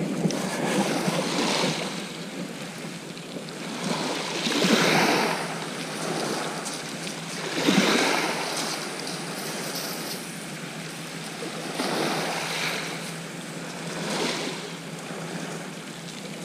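Small waves washing onto a shingle beach, the surf rising and falling every few seconds.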